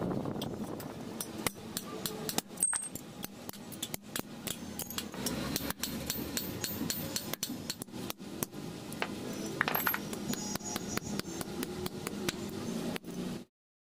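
Hand hammer striking a steel chisel held on a piece of steel over an anvil: many sharp metal-on-metal blows at uneven spacing, some much louder than others. It stops suddenly near the end.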